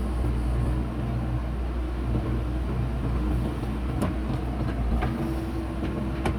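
Diesel engine of heavy earth-moving machinery running steadily, with a few sharp knocks about two-thirds of the way in and again near the end.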